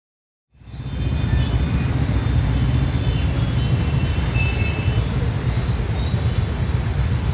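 Loud, steady rumble of vehicle noise that fades in from silence about half a second in, with faint short high-pitched tones scattered through it.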